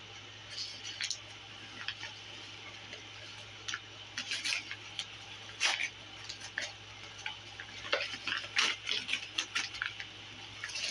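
Packaging being opened by hand: irregular crinkles, clicks and taps of cardboard and plastic being handled.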